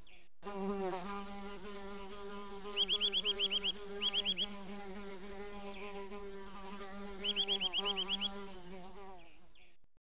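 A flying insect buzzing steadily, its pitch wavering slightly, with three short runs of quick high-pitched chirps over it. The sound fades and cuts off near the end.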